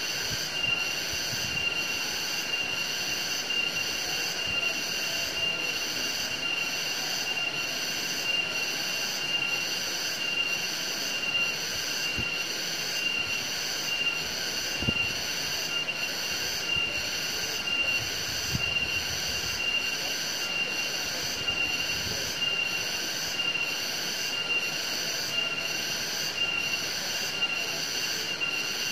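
Insect chorus: a steady high-pitched whine with a higher layer that pulses evenly throughout.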